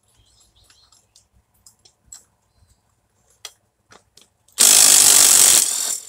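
A few light clinks of a wrench and socket on the nut, then, about four and a half seconds in, a cordless impact wrench runs loudly for about a second and dies away as it spins the 5/8 in. nut off the zero-turn mower's front wheel axle bolt.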